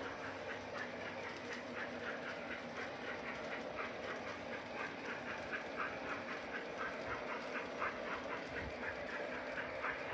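Large-scale garden railway model train running on outdoor track: a fast, even run of short clicks, about four or five a second, over a steady running rumble.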